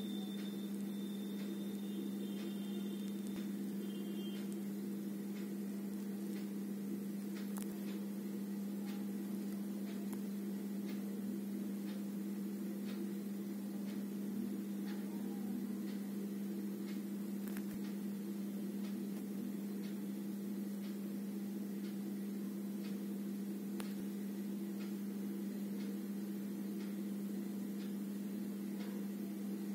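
Steady low electrical hum with a few faint ticks and a faint high whine in the first few seconds; no music yet.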